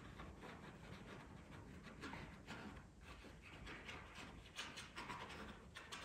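Faint, irregular scratchy strokes of a paintbrush laying oil paint onto canvas.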